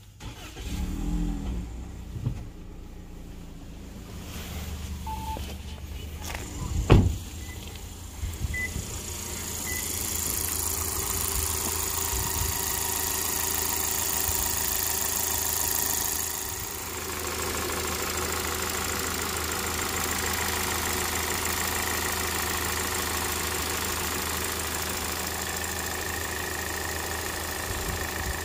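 Toyota Noah's inline-four 2.0-litre petrol engine starting and then idling steadily. It is heard first inside the cabin and later at the open engine bay. A sharp knock stands out about seven seconds in.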